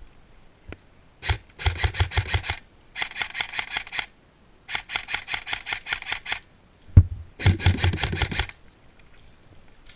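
Airsoft gun firing four bursts of rapid clicking shots on full auto, each burst a second or so long with short pauses between.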